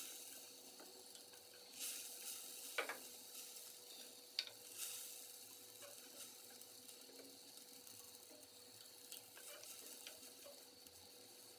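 Faint stirring of a thin meat gravy with a ladle in a stainless steel pot as flour-water is worked in to thicken it. Soft hiss of the gravy cooking throughout, with a couple of light clicks of the ladle against the pot about 3 and 4.5 seconds in.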